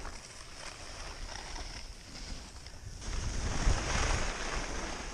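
Wind rushing over a helmet-mounted camera's microphone while skiing downhill, with the hiss of skis on snow; the wind rumble grows louder about three seconds in.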